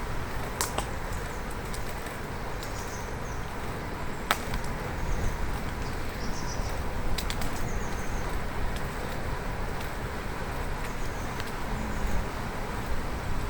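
Steady rush of wind and tyre noise from a moving bicycle, with three sharp clicks spread across the first half and a few faint high chirps in the middle.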